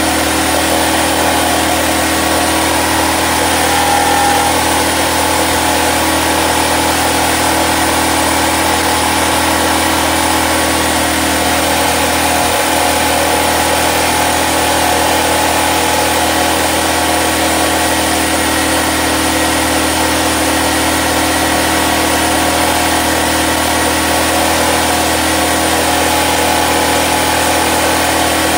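Small engine of a portable generator-welder running steadily at a constant speed, with a steady hiss over it.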